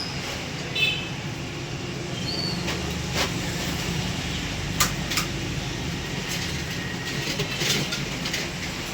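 A steady low machine hum with several sharp metallic clicks and knocks scattered through it.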